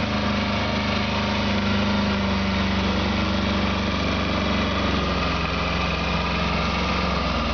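Kubota B1220 compact tractor's three-cylinder diesel engine running steadily under load as it pulls a plough through the soil.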